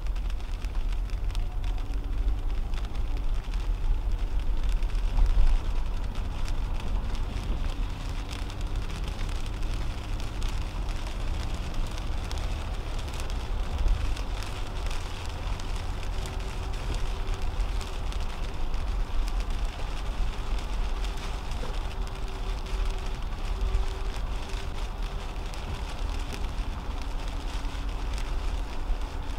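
Inside a 2010 Toyota Camry on a wet highway: steady low road rumble and the hiss of tyres on wet pavement, with many small ticks of raindrops hitting the windshield.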